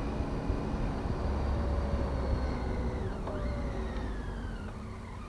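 Triumph Tiger 800's three-cylinder engine running under way, heard from a helmet camera over a steady low wind rumble; its note and level fall gradually over the last couple of seconds as the bike slows.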